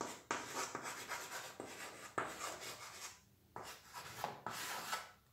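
Chalk scraping on a chalkboard as a word is written by hand: a run of short, gritty strokes with a brief pause about three seconds in.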